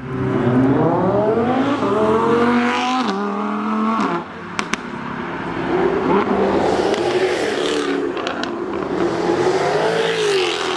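Jaguar F-Type engine and exhaust accelerating, the pitch climbing for about three seconds, dropping at a gear change, then a lift-off about four seconds in with a few sharp exhaust crackles. After that the engine runs on at lower revs with the pitch wavering up and down, with a couple more pops near the end.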